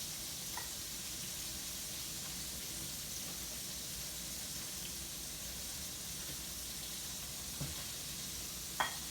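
Steady sizzling hiss of hot frying oil in a cast iron skillet, with a few faint knocks and a sharper knock near the end.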